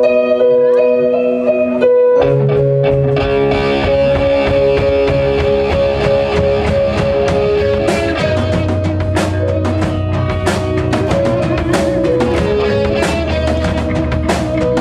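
A live rock band playing an instrumental passage: held keyboard chords, then drums, bass and guitars come in together about two seconds in and play on.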